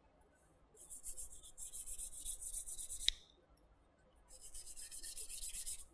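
Bristle brush scrubbing an AR-15 top charging handle in quick back-and-forth strokes, in two spells of about two seconds with a short pause between. A single light tick near the end of the first spell.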